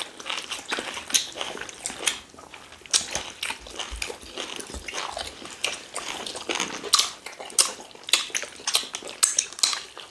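Close-up chewing and lip-smacking of people eating rice and stew with meat: an uneven run of short wet smacks and clicks.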